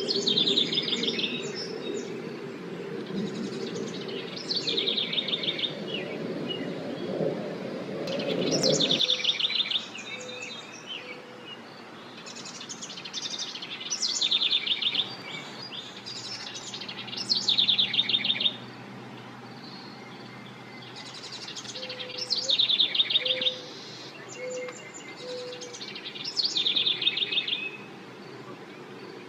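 Birds chirping outdoors: short bursts of rapid, trilled chirps repeating every few seconds. A low steady hum sits under the first nine seconds and cuts off suddenly.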